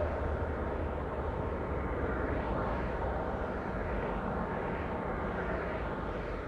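Steady rumble and hiss of a car driving along the road: tyre and engine noise, with a low drone that eases slightly just after the start.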